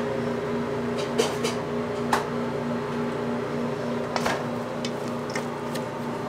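Steady hum of kitchen machinery, with a few short knocks and clinks as raw whole chickens are handled into a stainless steel bowl.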